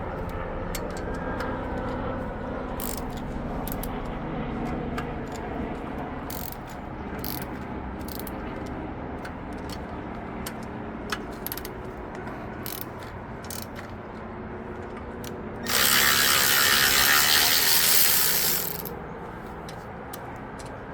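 Hand ratchet clicking in irregular runs as a long socket works the main bearing cap bolts of an LQ9 6.0-litre V8. Past the middle a loud, steady hiss lasts about three seconds.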